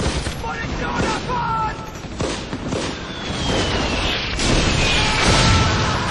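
Battle sounds of a city under bombardment: scattered gunshots and booms with shouting voices, a slowly falling whistle from about three seconds in, and a louder blast and rumble starting about halfway through.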